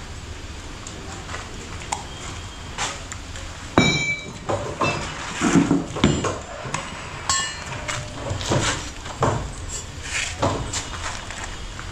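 Metal parts knocking and clinking against each other in irregular knocks, with one ringing metallic clink about four seconds in.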